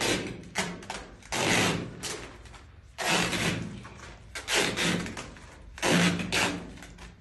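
A series of about five short scraping, rasping bursts as Armaflex foam insulation is worked around copper air-conditioner pipes.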